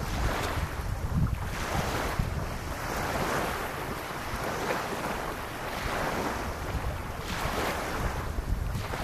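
Small waves lapping on a sandy shore, washing in and drawing back in soft swells every second or two. Wind rumbles on the microphone now and then.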